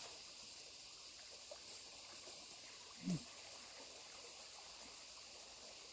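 Faint steady riverside ambience of running water. About three seconds in there is one brief low sound that falls in pitch.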